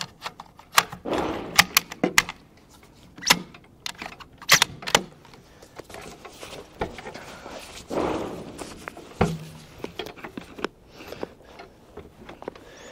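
Scattered light clicks and knocks with short spells of rustling: a rifle being handled on a shooting bench as the shooter settles in behind it. No shot is fired.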